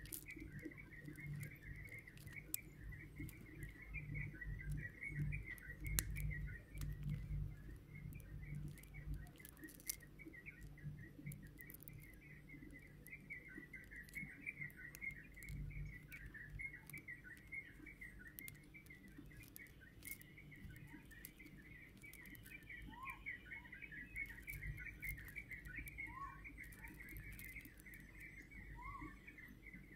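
Faint, unbroken high twittering like small birds chirping, with a few short rising calls in the last third, over a low steady hum and scattered light clicks.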